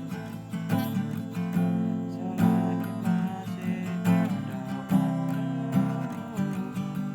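Acoustic guitar music, strummed chords in a steady rhythm.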